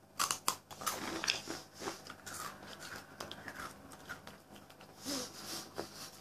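A crisp breadstick bitten and chewed: a quick run of sharp crunches over the first couple of seconds, then softer, irregular chewing.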